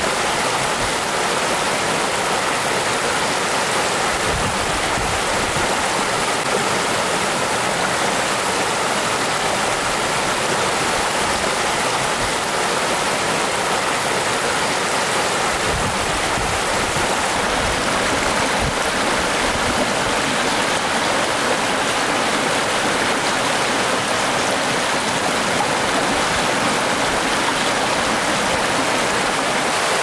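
Spring meltwater stream running fast over rocks in small rapids: a steady, even rush of white water.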